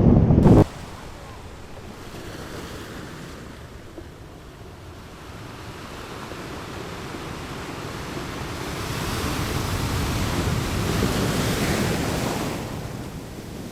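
Ocean surf on a beach: a wash of waves that swells from about halfway through, is loudest near the end, then falls away. Wind buffets the microphone at the very start and cuts off suddenly.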